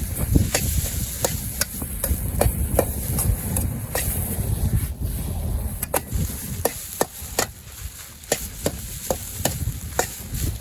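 Stir-frying rice in a two-handled Chinese wok: a metal utensil strikes and scrapes the wok in irregular sharp clacks, about one to two a second, over a low rumble.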